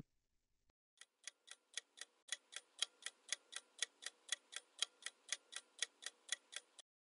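Clock-ticking sound effect of a countdown timer, about four even ticks a second, starting about a second in and stopping shortly before the end.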